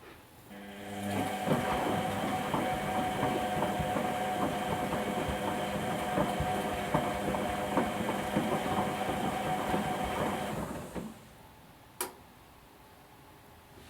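Whirlpool Indiana 1400 front-loading washing machine turning its drum during the wash phase: a steady motor whine with an irregular clatter of knocks as the load tumbles. It starts about half a second in, runs for about ten seconds, then stops, and a single sharp click follows about a second later.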